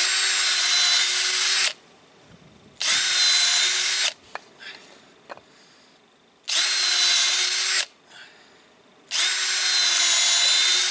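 Electric power drill running in four bursts of one to two seconds each, the motor holding a steady pitch through each. The owner reckons the drill is wearing out from heavy use.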